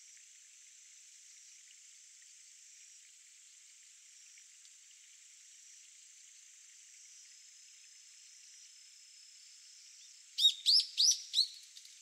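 Brown-eared bulbul calling near the end: a quick run of about five loud, sharp notes, each arching up and down in pitch, trailing off into a few softer ones. Under it, a faint steady high-pitched hum.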